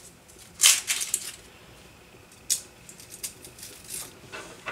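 Dry onion skin being peeled off with a knife: scattered crisp crackles and scrapes, the loudest about half a second in and another sharp one about two and a half seconds in, with a few small clicks near the end.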